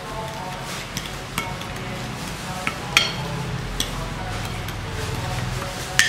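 Metal spoon scraping and clinking against a glass plate as seasoning, oil and soy sauce are stirred together, with a sharp clink about three seconds in and another near the end.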